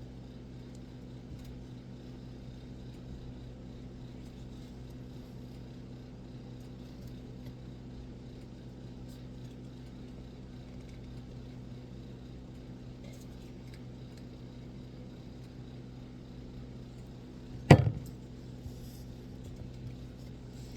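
Faint steady low hum, with a single sharp knock about three-quarters of the way through.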